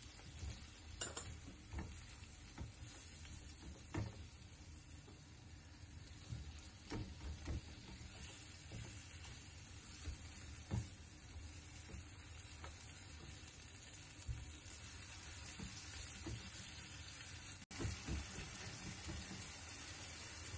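Baingan bharta (mashed eggplant) frying in a pan with a faint steady sizzle, while a spatula stirs it, knocking against the pan every few seconds.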